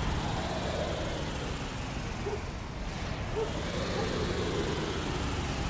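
Cartoon sound effect of a car engine running as vehicles drive along, with a steady rushing noise that falls away in the first second and swells again about halfway.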